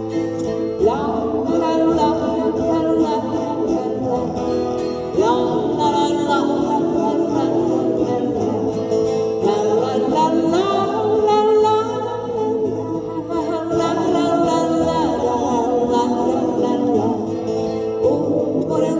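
Several acoustic guitars strumming chords while voices sing the melody together over them: a live old-pop song performed by a guitar-and-vocal group.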